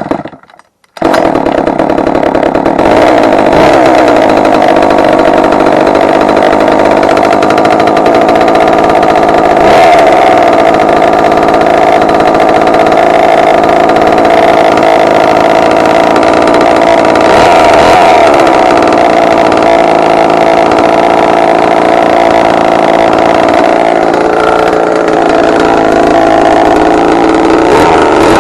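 Small two-stroke engine of an old Remington Mighty Mite Bantam chainsaw running loudly and steadily, its revs lifting slightly a few times.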